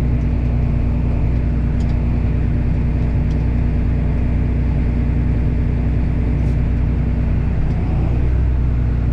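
Tractor engine running steadily at raised RPM, driving the grain cart's unloading auger through the PTO while corn is unloaded into a trailer.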